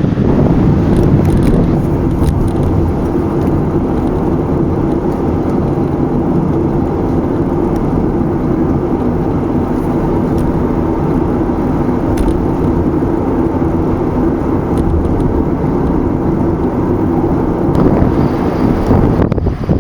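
Steady road and engine noise of a car driving at speed.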